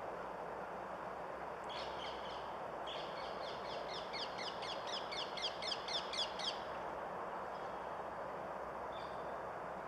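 A bird calling in a rapid series of short, falling notes, about five a second, for several seconds before stopping, over a steady background hiss.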